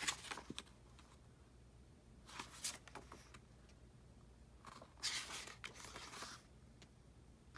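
Pages of an album photo book being turned by hand: three soft paper swishes, the last and longest about a second and a half.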